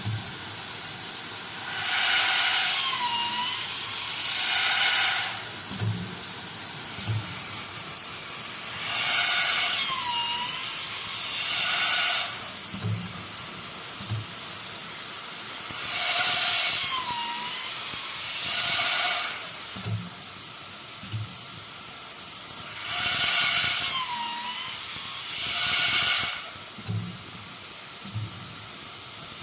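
Timing belt teeth-grinding and back-side grooving machine running through a repeating cycle about every seven seconds. A steady hiss runs underneath. Each cycle brings two bursts of a high grinding whine, the first dipping in pitch and recovering, followed by two short dull knocks.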